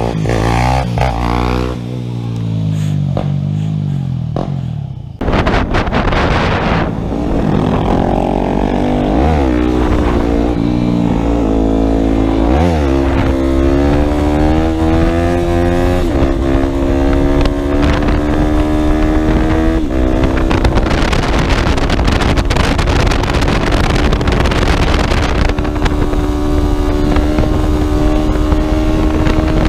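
Dirt bike engine revving up and down for the first few seconds. It then accelerates hard with rising pitch, dropping briefly twice as it shifts up, and holds high, steady revs.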